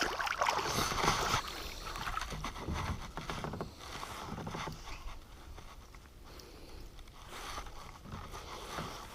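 Water splashing and sloshing around a fishing kayak as a hooked fish is brought in, with scattered knocks and clicks. It is busiest in the first second or two and settles to a fainter wash after that.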